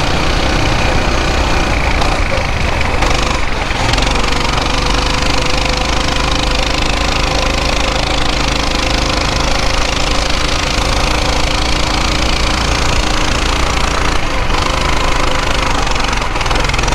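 Coleman BT200X mini bike's small single-cylinder four-stroke engine running at riding speed, with wind noise over the microphone adding a heavy low rumble.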